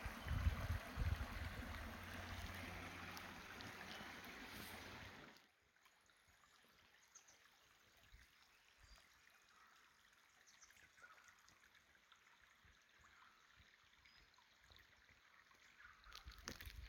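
Creek water running over rocks, with low wind rumble on the microphone; about five seconds in it cuts off suddenly to near silence.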